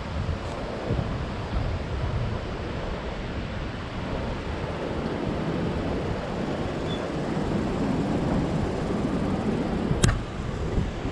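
Wind rumbling on the microphone over a steady wash of beach surf, with one sharp tap about ten seconds in.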